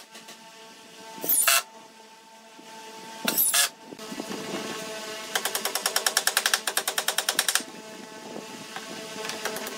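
A cordless driver driving screws into pallet wood, giving a rapid rattle of about ten taps a second for a couple of seconds from about five seconds in. Two short loud bursts come before it.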